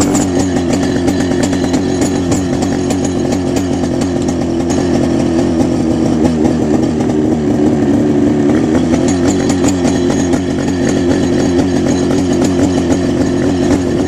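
Mosquito ultralight helicopter's engine running steadily on the ground, freshly started, with an even buzzing note.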